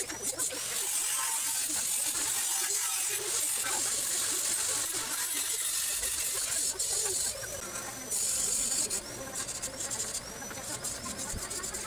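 Stick-welding arc crackling and sizzling on steel tubing, breaking off briefly a few times in the second half as the arc stops and restarts.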